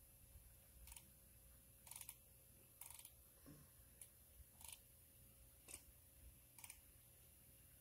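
Near silence with faint, sharp clicks about once a second, slightly uneven in spacing.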